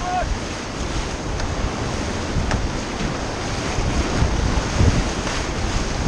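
Whitewater rapids rushing and churning around an inflatable raft, a steady roar of water with wind buffeting the microphone.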